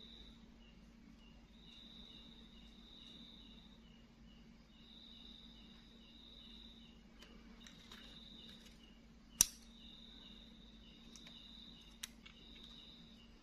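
Faint high-pitched insect-like chirping in repeated trills of a second or two, over a low steady hum. One sharp click about nine seconds in is the loudest sound, with a smaller click near the end.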